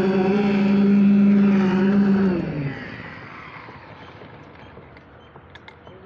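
A machine's motor running with a steady hum, then switched off about two and a half seconds in, its pitch falling as it winds down. After that only faint background noise with a few light knocks.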